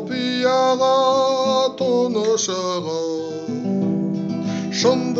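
A man singing a slow song in Kazakh, holding long notes, to guitar accompaniment.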